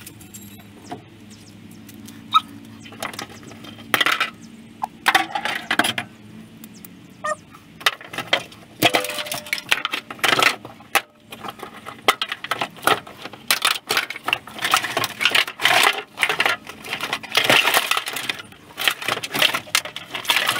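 A car's wiring loom being yanked out of a stripped cabin: plastic connectors, clips and wire bundles clatter and click against the bare metal floor. The clatter comes in quick irregular rattles, sparse at first and much busier after the first several seconds.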